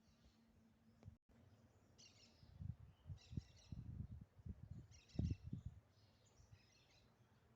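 Faint bird chirps in short bursts, with a run of dull low thumps through the middle, the loudest about five seconds in.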